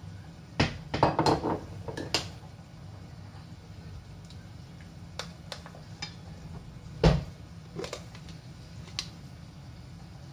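Metal spoon clinking and scraping against a stainless steel mixing bowl while pork chops are stirred in marinade. There is a cluster of clinks in the first two seconds, scattered single clinks after, and a louder knock about seven seconds in, over a faint steady low hum.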